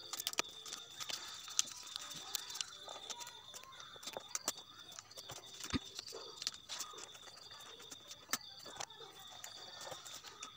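Wrapping paper rustling and crinkling as hands fold and tuck it, with many small scattered clicks and crackles. A faint high-pitched tone pulses on and off in the background.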